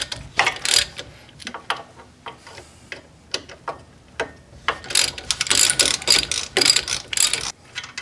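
Socket ratchet clicking in repeated short strokes as it backs off the 15 mm side of a T50 Torx bolt on a steering knuckle, the other side held with a wrench. The clicking gets quicker and louder from about five seconds in.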